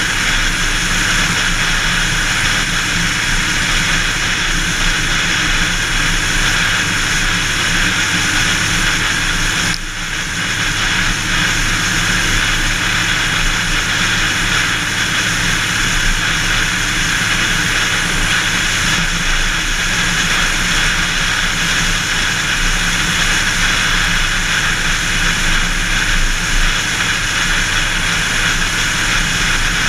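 Steady wind and road noise of a car travelling at highway speed, with a brief dip in loudness about ten seconds in.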